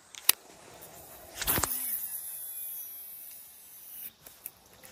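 A cast with a baitcasting reel: a sharp click, then about a second and a half in the swish of the cast and the spool whirring as line pays out, fading over about two seconds, and another loud sharp click at the end as the reel is turned back into gear.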